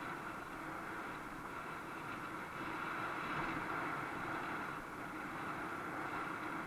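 Steady riding noise from a bike rolling along a paved path: tyre and wind noise with a steady hum.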